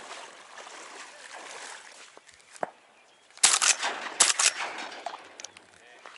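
Two loud shotgun shots from a Benelli Supernova pump-action shotgun, less than a second apart, about three and a half seconds in.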